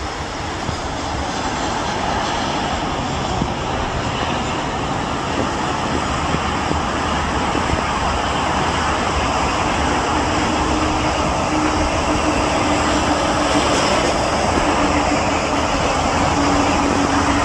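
Jet airliner on final approach and landing, its engines a steady rushing rumble that grows louder as it comes closer, with a low steady hum joining about ten seconds in.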